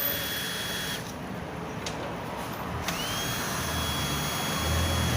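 Cordless drill-driver running in two spells: a steady high whine that rises as the motor spins up and then holds. It stops about a second in and starts again about three seconds in. A low rumble swells near the end.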